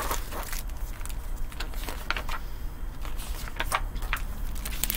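Pages and cover of a picture book being handled and turned: several short, separate paper rustles and soft taps over a steady low room hum.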